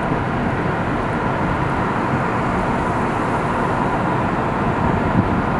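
Steady road and engine noise of a car driving along a highway, heard from inside the car.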